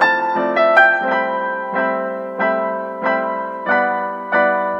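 Background piano music: notes and chords struck at an even pace, a little under two a second, each fading before the next.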